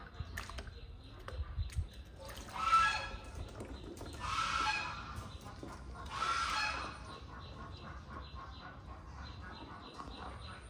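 Three loud, harsh animal calls, each about a second long and roughly two seconds apart.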